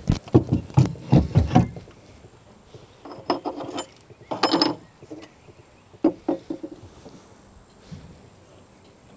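A metal-framed folding boat seat knocks down onto its pedestal post in a quick run of knocks, then clanks and rattles a few times as its hinged back is unfolded.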